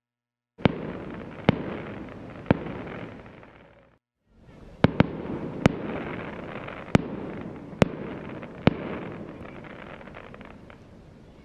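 Fireworks bursting: a string of sharp bangs over continuous crackling, with a short break about four seconds in.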